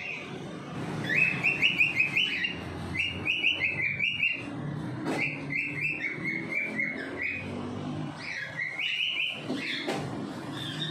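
A bird chirping in quick runs of short high notes, about four or five notes a second, a run every second or two, over a low background rumble.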